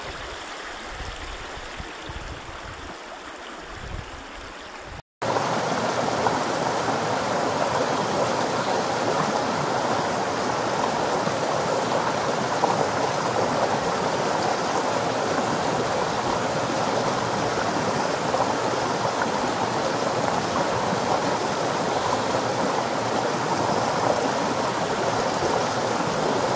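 River water rushing over rocks in shallow rapids, a steady hiss. About five seconds in, it cuts from a quieter stretch of flowing water to a louder, closer rush.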